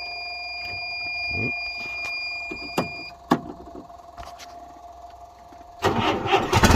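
Terex 760 backhoe being started: a steady electronic tone with the key on and a couple of sharp clicks, then near the end the starter cranks and the diesel engine catches and runs.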